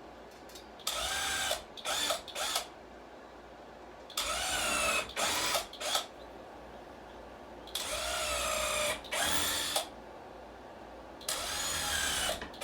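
Power drill pre-drilling four pilot holes into wood: four bouts of drilling, each made of a few short trigger runs, the motor's whine sagging and recovering in pitch as the bit bites.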